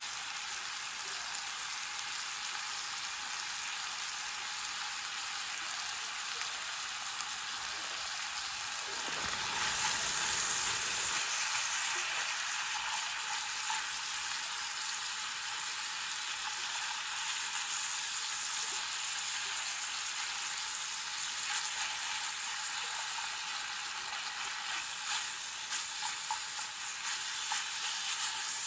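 Beef and sliced onions sizzling steadily in a hot frying pan as they are stir-fried with chopsticks.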